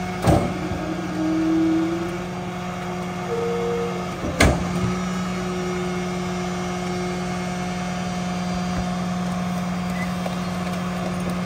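Mack garbage truck running with its McNeilus rear-loader hydraulic packer cycling: a steady mechanical drone, with two sharp metal clanks, one right at the start and one about four and a half seconds in.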